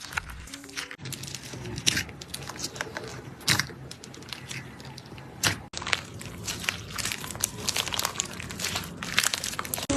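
Slime being squeezed and pressed, giving a dense run of crackling, popping clicks, with a few louder snaps. Faint background music underneath.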